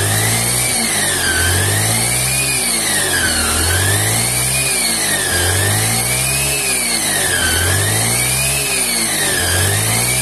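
Honda Beat scooter's single-cylinder engine revved up and back down about five times in a steady rhythm, driving the raised rear wheel. A high whistling whine ("nyuling") rises and falls with each rev. The mechanic puts it down to the gearbox, which was recently rebuilt with a new bearing and pulley shaft, and the rear wheel also drags.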